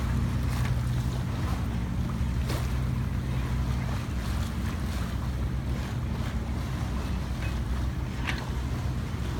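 Wind rushing over the microphone and water washing past the hull of a sailboat under way, over a steady low hum.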